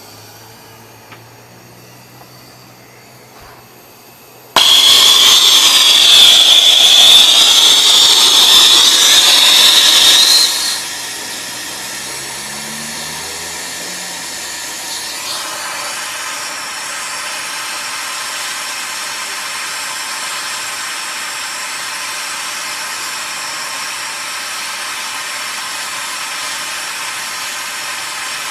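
A brazing torch: a loud gas hiss with a high whistle starts suddenly a few seconds in, lasts about six seconds, then settles to a steadier, quieter hiss of the flame as the filter drier joints are brazed.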